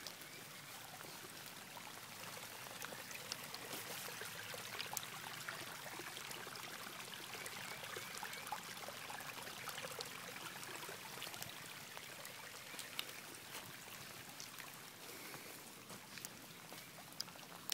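Muddy rainwater runoff flowing in shallow channels across bare clay ground in heavy rain: a steady sound of running water with scattered ticks of falling drops.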